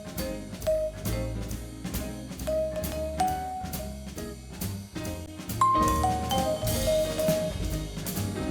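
Background music: a jazzy tune with a steady drum-kit beat, bass and short melody notes, a cymbal swell about two-thirds through.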